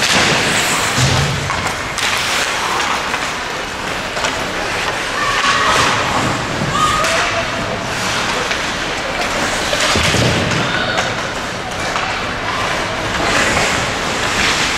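Ice hockey game sound in a rink: repeated thuds and knocks from play on the ice and against the boards, over a steady noise of the game, with voices shouting.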